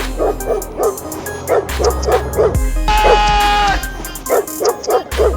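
Music with a steady bass line and a rapid string of short dog barks, several a second, over it. About halfway through, a longer held note sounds.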